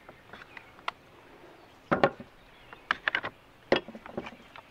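Knocks and clicks of hand tools being handled on a plywood sheet: a cordless drill, a plastic hinge-boring jig and a Forstner bit set down and moved. One knock comes about two seconds in, then a quick run of clicks around three seconds and a few lighter knocks near the end.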